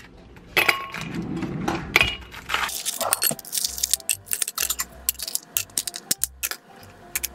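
Ice cubes dropped one after another into a stemless drinking glass, clinking against the glass and against each other in many sharp, irregular clinks.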